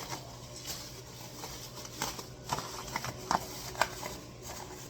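Plastic delivery bag crinkling as it is torn open by hand: irregular crackles and sharp clicks.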